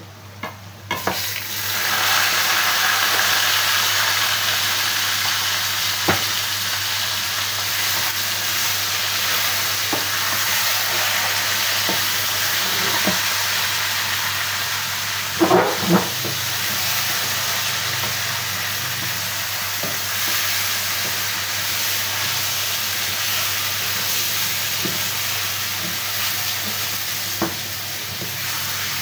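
Chicken pieces sizzling in hot oil in a metal kadai, starting suddenly about a second in as they go into the pan of fried onions and continuing steadily. Occasional knocks of a wooden spatula stirring against the pan, with two louder knocks about halfway.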